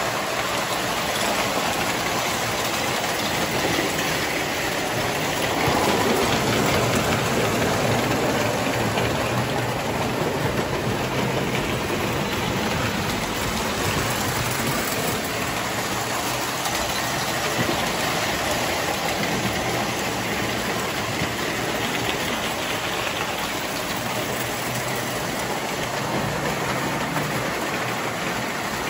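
Model steam locomotives and their cars running on three-rail metal toy train track: a steady mechanical noise of wheels on the track and the locomotives' motors.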